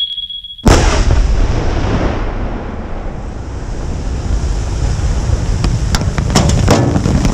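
An explosive demolition charge detonates about a second in: a sudden loud blast followed by a long roll of noise that eases off over a couple of seconds. Near the end the noise builds again with sharp ticks as thrown dirt and stones start coming down.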